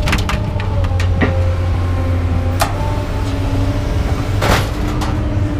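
A vehicle engine idling steadily, with a few sharp knocks and clanks from scrap being moved.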